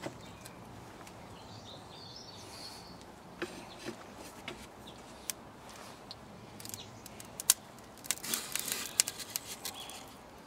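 Scattered light clicks and scrapes as small terracotta flower pots of bread dough are set down inside a flower-pot tandoor's clay chamber. A few come around the middle and a busier run near the end, over a faint outdoor background.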